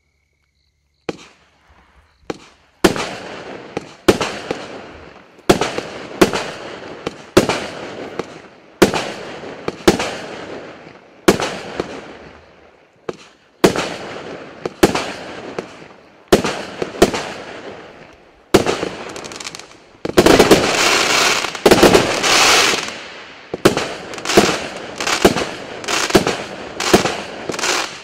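Klasek Pyromaster 66-shot, 20 mm consumer firework cake firing. After a moment of quiet, single shots go off about every second and a half, each sharp bang trailing off into the crackle of its burst. About twenty seconds in comes a dense stretch of continuous crackling, and then the shots follow faster, about two a second.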